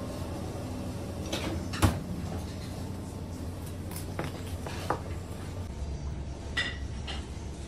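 Knife and cleaver knocking and clacking on a plastic cutting board as a large whole fish is cut up: scattered sharp knocks, the loudest just before two seconds in, over a steady low hum.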